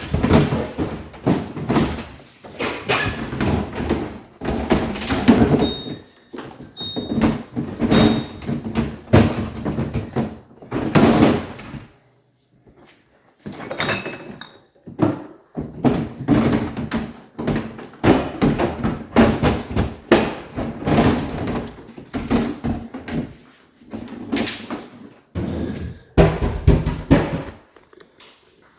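Refrigerator freezer drawers and their plastic glide parts being worked loose and handled: irregular knocks, thunks, scraping and sliding clatter, with a few short squeaks around six to eight seconds in and a brief lull near twelve seconds.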